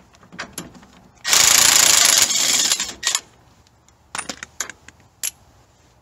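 Cordless impact wrench hammering for about a second and a half, breaking loose and running off the heavily torqued 30 mm nut on a Ford Expedition's lower front strut mounting bolt. A few light clicks follow.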